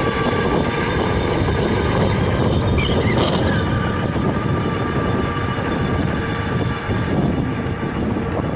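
Monday Motorbikes Anza 750 W electric bike ridden at speed: wind rushing over the microphone and tyre noise, with the electric motor's faint steady whine underneath.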